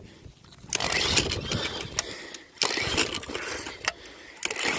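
Small gasoline lawn mower engine running with its air cleaner off, with loud stretches of rushing noise over it about a second in and again near the middle.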